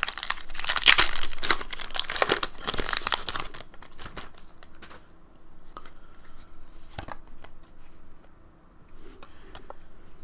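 Foil Pokémon booster pack wrapper being torn open: loud tearing and crinkling of the foil for about the first three seconds, then quieter rustling and a few light clicks as the cards are taken out and handled.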